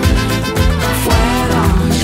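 Lively brass-band music with saxophone, horn and a steady drum beat.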